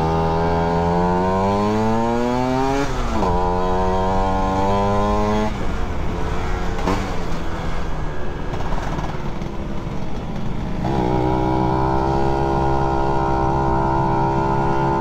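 Yamaha F1ZR's two-stroke single-cylinder engine heard from the rider's seat. It revs up through a gear, drops in pitch at a shift about three seconds in, and revs up again. Around five seconds in the throttle eases and the engine note sinks under wind and road rush, then from about eleven seconds it holds a steady note while cruising.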